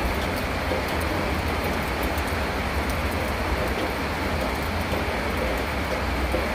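Heavy rain and floodwater rushing along a flooded avenue: a steady, even noise with a low rumble underneath.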